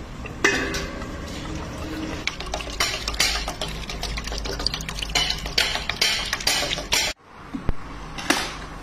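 Traditional stone oil mill (ghani) running, a low rumble with irregular knocks and clatter, while pressed oil trickles from the mortar's spout into a steel pot. The sound breaks off sharply about seven seconds in and resumes with a similar rumble.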